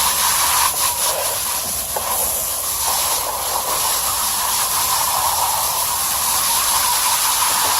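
Garden hose spraying water through an air-conditioner coil, a steady hiss, rinsing packed cottonwood out of the clogged fins.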